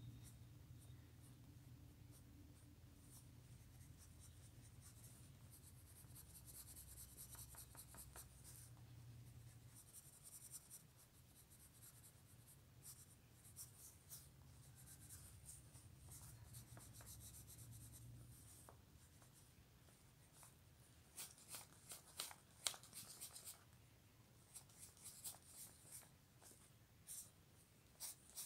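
Faint pencil scratching on paper during sketching, in quick runs of short strokes that turn sharper and more separate in the last third.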